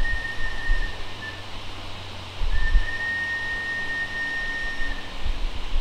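Garden-scale model locomotive whistle blowing two steady single-note blasts: a short one ending about a second in, then a longer one lasting nearly three seconds.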